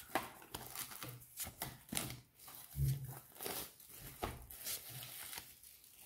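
Pokémon trading cards being flipped through by hand, one card at a time moved from the front of the stack to the back: a quick, uneven run of short snaps and slides of card against card.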